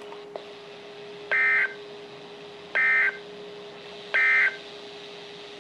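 NOAA Weather Radio end-of-message signal: three short bursts of EAS/SAME digital data tones, about a second and a half apart, played through a Midland WR-120 weather radio. It marks the end of the severe thunderstorm watch broadcast.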